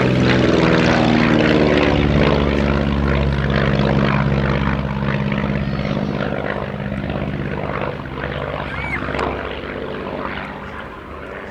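Single-engine propeller aircraft, a North American Navion with a Lycoming O-435 six-cylinder piston engine, flying past. Its engine and propeller drone drops in pitch over the first couple of seconds as it passes, then fades steadily as it flies away.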